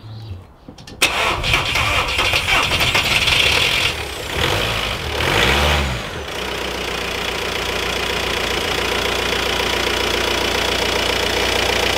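Audi A4's 2.0 TDI four-cylinder diesel cranked and fired about a second in, starting roughly with a dip and a surge in engine speed around four to six seconds in, then settling into a steady idle. A rough first start just after the intake manifold was swapped and the swirl flaps removed.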